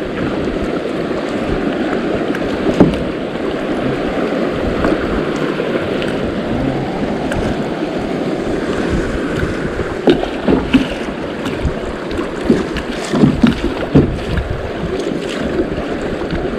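Rushing river rapids around a plastic sit-on-top kayak, with wind buffeting the microphone. Scattered sharp knocks and splashes from paddle strokes come once about three seconds in and in a cluster from about ten seconds in.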